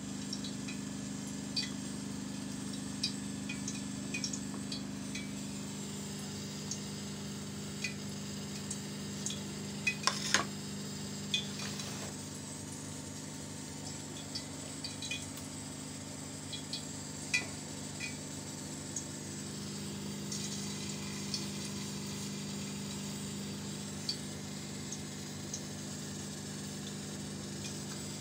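Cooking utensils clinking and scraping against a metal pot and a mixing bowl during stirring and mixing, as scattered short clinks over a steady low hum. The clinks come thickest about ten seconds in.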